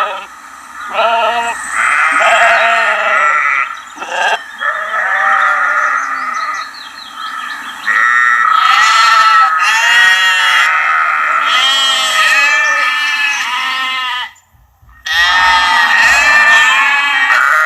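Several sheep and lambs bleating in overlapping, quavering calls, high-pitched lamb bleats among them, almost without pause, with a short break near the end.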